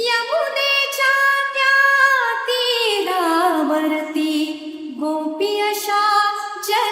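A high solo voice singing long, wavering melismatic notes with no drums or bass under it, in the style of an Indian devotional vocal line.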